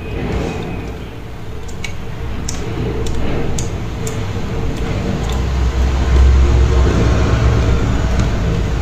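Close-miked chewing of a mouthful of frozen matcha ice: dense crunching with sharp crackles in the first few seconds, growing louder.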